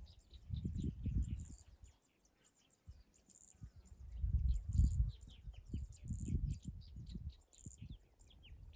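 Many small birds chirping in a busy chorus, over a low, uneven rumble that swells and fades, like wind buffeting the microphone.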